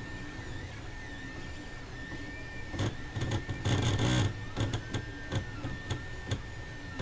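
Ender 2 3D printer's stepper motors driving the axes while homing: a series of short moves, each a whine that rises and falls in pitch, over a steady high tone. A cluster of clicks and knocks comes midway, with single clicks after.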